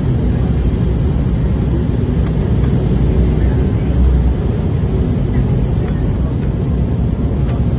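Steady low rumble of an Embraer E190 airliner's cabin during the descent on approach: engine and airflow noise heard from inside at a window seat, swelling slightly about four seconds in.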